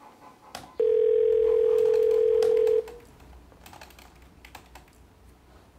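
Telephone ringback tone: one steady two-second ring as a call rings through to the other end. After it comes faint tapping of a computer keyboard.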